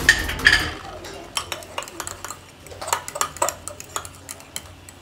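Metal fork stirring mayonnaise and ketchup in a ceramic bowl, scraping and clinking against the bowl in a quick run of short ticks, loudest in the first second.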